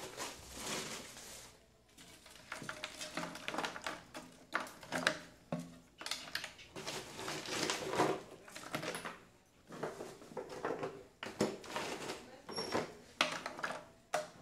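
Ice cubes clattering and clinking as they are dropped, a handful at a time, into the ice-and-salt freezer bucket around the ice cream canister, in bunches with short pauses between.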